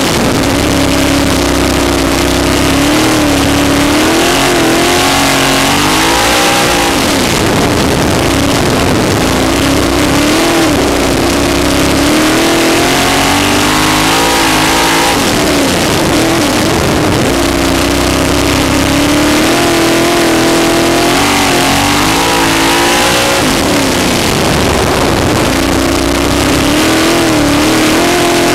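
Sprint car's V8 engine at racing load, heard from on board. It runs loud and steady, and every several seconds its pitch dips and climbs back up.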